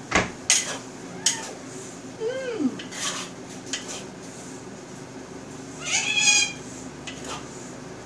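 Metal spatula clanking and scraping against a wok while stir-frying noodles. Two short high-pitched cries come through, one about two seconds in and a louder one about six seconds in.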